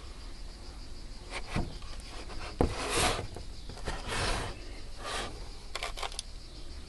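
Rubbing and scraping as an antique iron-banded wooden measure is turned over in the hands, in several short swells, with a sharp knock about two and a half seconds in and a few quick taps near the end.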